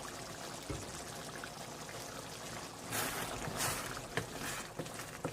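Pot of sauce bubbling as it cooks, with a few light knocks of a utensil or lid against the pot and a louder hissing surge about three seconds in.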